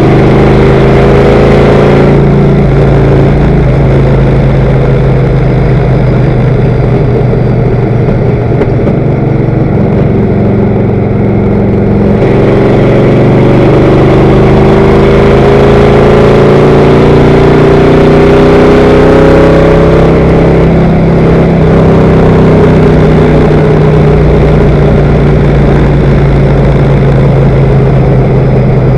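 Stock car's V8 engine running loud at racing speed, heard from inside the car, with wind and road noise. Its pitch climbs slowly around the middle and eases off a little later.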